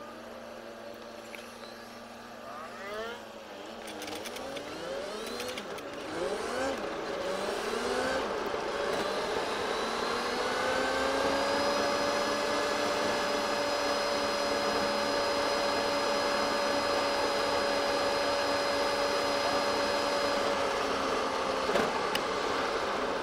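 A car's engine and gearbox played back at four times speed, giving a high buzzing whine like a supercar: a low steady note at first, then a run of quick rising sweeps as it accelerates through the gears, settling into one steady higher note before falling away near the end. The owner puts the buzz down to a gearbox in poor condition.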